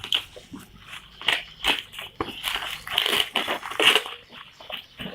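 Packaging of a new drill being pulled and forced open by hand, a run of irregular crunching and crinkling noises; the packaging is glued shut.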